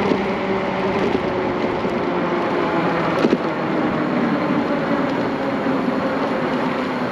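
Wind rushing over the microphone at riding speed, with the steady whine of an Ariel Rider Grizzly e-bike's electric hub motors under it. A single knock about three seconds in.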